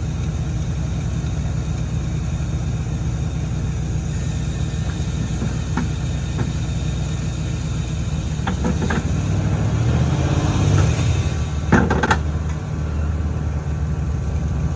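Heavy diesel engine running steadily and coming under more load about ten seconds in, with a few metal clanks and one sharp, loud clank near the end.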